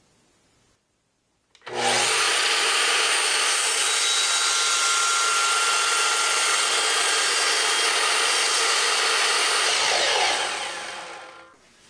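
Sliding compound miter saw running and cutting through a wooden board at an angle. The whine starts suddenly about two seconds in, holds steady, then fades as the blade winds down near the end.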